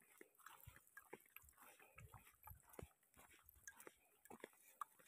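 Faint, irregular crunching and soft thumps of footsteps on a dry grassy trail.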